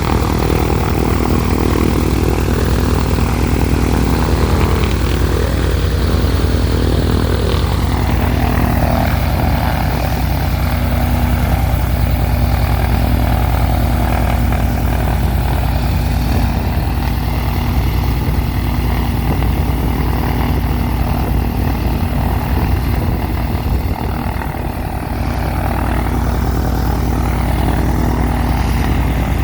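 Cessna 182's six-cylinder piston engine and propeller running steadily on the ground during an engine run-up, fresh from a new cylinder and a new exhaust system. The sound is loud and even throughout, with a short dip in level near the end.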